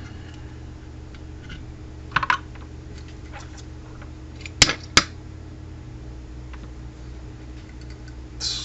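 A few light clicks and taps of small tools and parts being handled on a workbench, the two sharpest about half a second apart near the middle, over a steady low hum.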